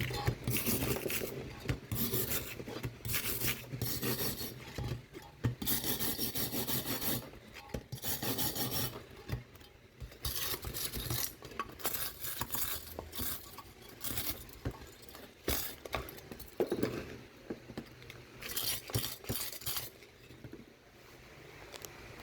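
Irregular strokes of hand scraping and rubbing on the metal parts of a washing machine motor, cleaning off dirt and rust.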